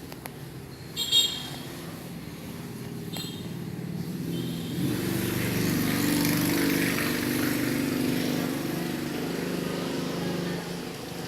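A motor vehicle engine running, growing louder from about four seconds in and easing off near the end, with a few short high beeps earlier on.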